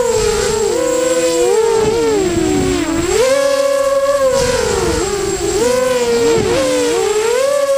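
Multirotor drone's electric motors and propellers whining in flight, several pitches rising, falling and splitting apart as the throttle and the speed of each motor change.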